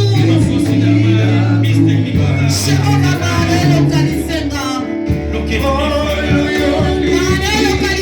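Worship music with a singing voice over long held bass notes that change every second or two.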